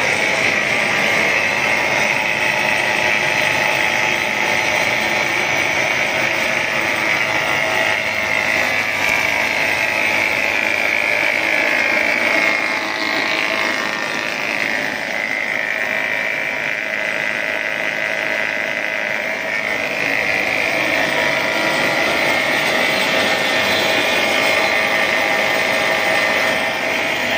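Food production-line machinery running: motors and mixing and cutting machines giving a steady mechanical hum with a high whine, the pitch wavering for a few seconds in the middle.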